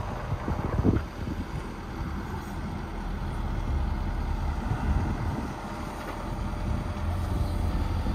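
Mustang 550z 5.5-ton mini excavator's diesel engine running steadily under work as the machine moves its arm and tracks.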